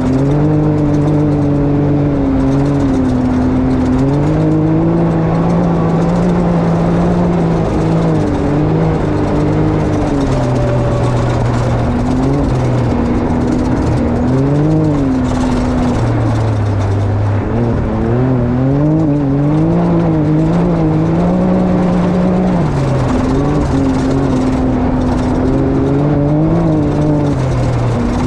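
Can-Am XRC side-by-side engine running, its note rising and falling every second or two as the throttle is worked. The machine is in limp mode, which the owner puts down to a bad drive belt.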